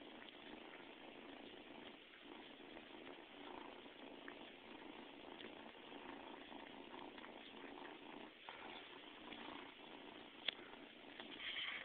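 A pet cat chewing on carpet pile up close, purring steadily and faintly, with small scattered clicks from the fibres and a sharper click about ten and a half seconds in.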